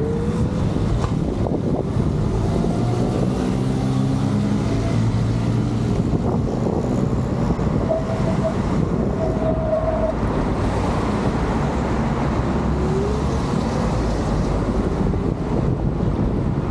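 Wind rushing over the microphone and road rumble from a moving electric scooter, with street traffic and a car passing close by about halfway through.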